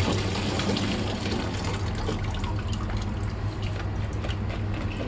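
Water running from a kitchen tap, a steady rushing with small splashes, over a constant low hum.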